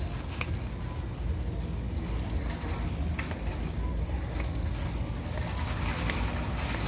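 Shopping cart rolling across a hard store floor: a steady low rumble, with a few faint clicks and rattles.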